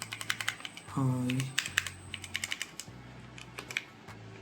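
Keys of a Cosmic Byte Pandora mechanical keyboard being pressed, sharp clicks in quick runs and scattered single presses, as repaired keys are tested after a soldered jumper-wire fix.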